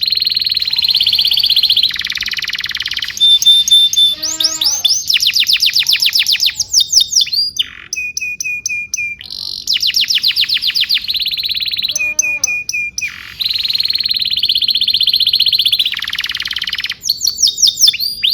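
Domestic canary singing a long, continuous song. It alternates long rapid trills with runs of fast repeated sweeping notes and short series of falling notes, and the phrases recur every few seconds.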